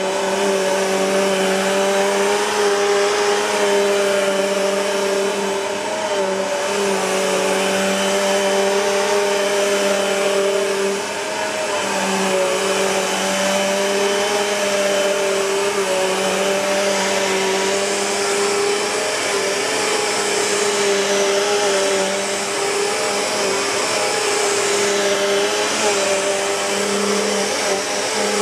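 Bissell PowerForce Compact (2112) bagless upright vacuum cleaner running, a steady motor hum over a rush of air, dipping slightly in loudness a few times.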